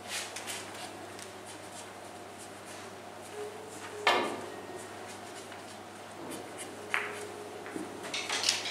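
Room tone in a billiard hall with one sharp knock about four seconds in, the loudest sound, and a few lighter clicks and rubs from handling cues and equipment.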